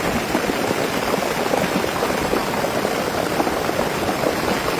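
Steady, dense rush of storm water from torrential rain and runoff, even in level throughout.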